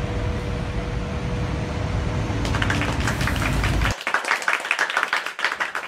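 City street traffic ambience with heavy wind rumble on the microphone and a steady hum. About two and a half seconds in, quick hand clapping joins it, and the clapping carries on alone after the street sound cuts off abruptly near four seconds.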